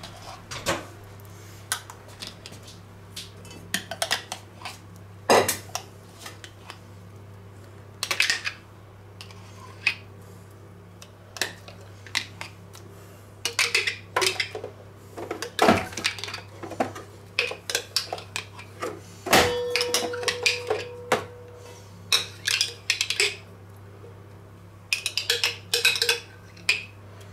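Metal spoon clinking and scraping against a glass jar and a stainless steel pan as mayonnaise-style dressing is spooned out, with scattered clatter of kitchen utensils. One knock, about twenty seconds in, leaves a brief ringing tone.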